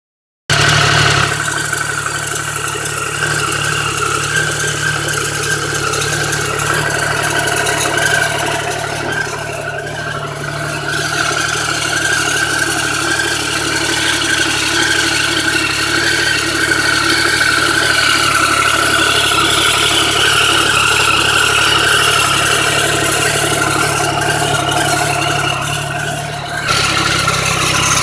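Triumph 1050 motorcycle's three-cylinder engine running steadily, with slight dips in level about ten seconds in and again near the end.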